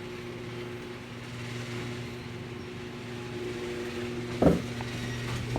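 A steady electrical hum with a low pitch and its overtones, and a single short knock about four and a half seconds in.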